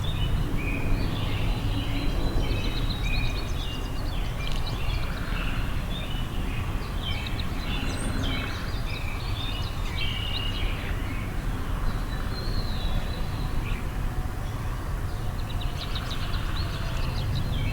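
Songbirds chirping and calling in many short, high notes and brief warbling phrases, over a steady low background rumble.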